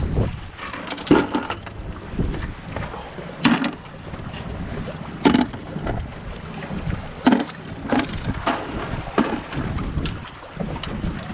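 Wind buffeting the microphone on the seashore, with about six short sharp knocks and clatters scattered through it.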